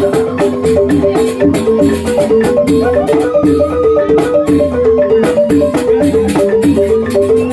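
Balinese rindik ensemble playing: bamboo xylophones strike quick, evenly repeating interlocking notes, with a long held higher melody note and sharp percussion strikes over them.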